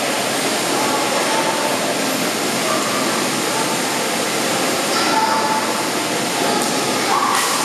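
Steady din of many children's voices in an indoor pool hall, blending into one continuous wash of crowd noise.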